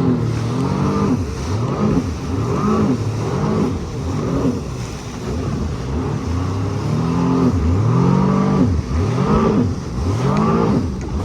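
Jet ski engine revving up and down over and over, its pitch rising and falling about once a second.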